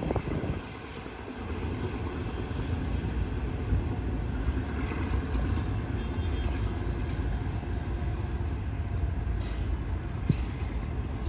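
Diesel locomotive approaching along the track, a steady low rumble that grows louder about a second and a half in.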